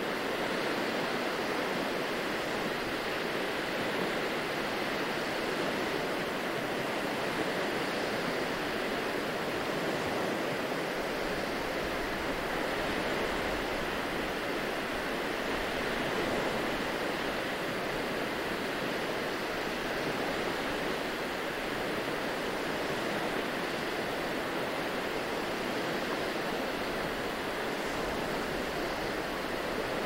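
Small waves washing onto a sandy beach: a steady, even rush of surf with no distinct breaks standing out.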